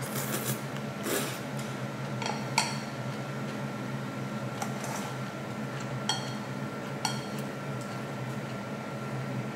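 Utensils clicking and clinking against a bowl about eight times at irregular intervals, some strikes ringing briefly, over a steady low appliance hum.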